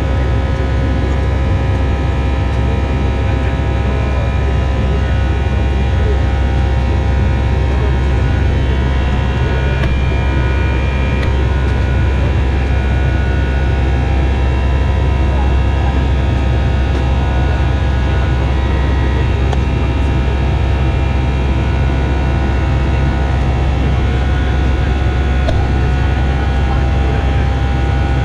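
Airbus A319 cabin noise during the climb after take-off: a loud, steady deep rumble from the engines and airflow, with a layer of several steady higher whining tones over it.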